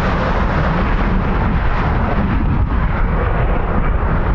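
Jet airliner engine noise: a loud, steady rumble.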